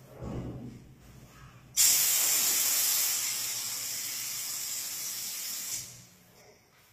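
Handheld paint spray gun spraying: a steady hiss of air and paint that starts abruptly about two seconds in, runs for about four seconds, then fades out.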